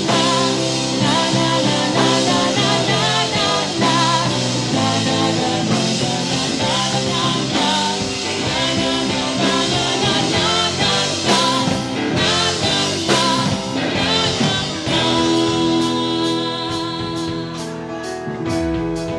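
Rock band playing an instrumental passage of a song between verses. About fifteen seconds in, the music settles onto a held chord, with a steady high tick keeping time about two to three times a second.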